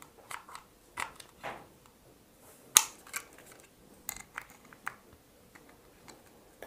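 Light clicks and scrapes of plastic as the opened housing and circuit board of an LED bulb are handled, with one sharp click about three seconds in.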